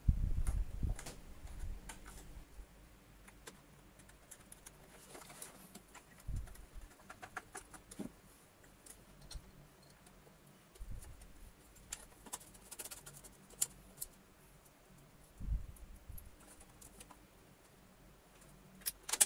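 Faint handling sounds from a vacuum cleaner's parts being put together: scattered small clicks and taps, with a few low knocks in the first second and a half and again now and then, as the handle tube is seated on the body and the cable is clipped along it.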